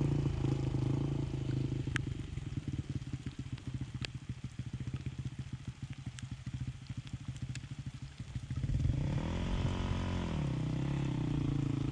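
Dual-sport motorcycle engine running and fading as the bike rides away. About nine seconds in it gets louder again with a rev that rises and falls in pitch, then keeps running. A few sharp clicks are heard along the way.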